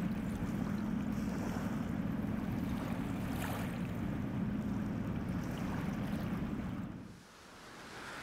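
Inland motor tanker's diesel engine droning steadily under load as it runs upstream, over the wash of river water and some wind noise. The drone drops away sharply about seven seconds in, leaving fainter hiss.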